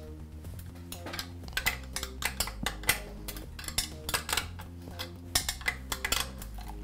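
Steel open-end wrench clinking and ticking against the metal fitting of an air compressor's pressure gauge as the gauge is unthreaded from the tank: a quick, irregular run of sharp metal clicks and taps that starts about a second and a half in.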